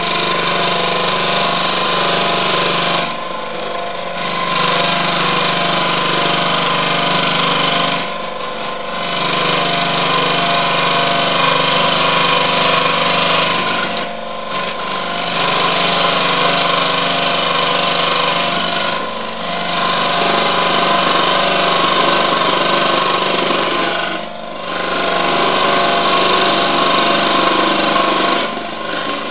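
Proxxon DSH scroll saw running, its reciprocating blade cutting 2 mm aluminium sheet with a steady high-pitched rasp over the motor hum. The cutting noise drops away briefly about every five seconds while the motor keeps running.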